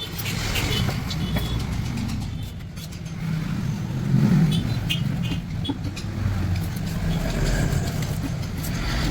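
Low, steady rumble of a motor vehicle's engine running nearby, swelling about four seconds in, with a few light clicks and taps over it.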